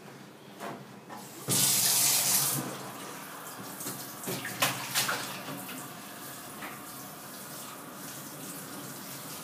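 Handheld shower head spraying water over a small child in an inflatable tub, with a loud burst about a second and a half in, then a steadier spray with a few light knocks.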